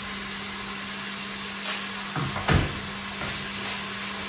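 Chopped onions sizzling steadily in hot oil in a steel cooking pot as they brown, with a low hum under the hiss and a couple of brief low thumps about two and a half seconds in.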